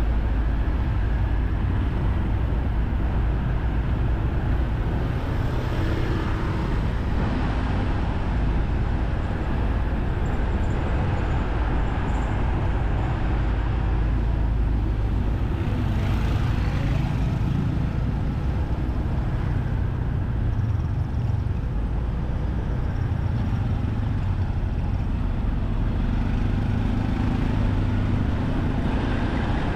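Steady street traffic and road noise heard from a moving motorcycle, with a heavy, constant low rumble.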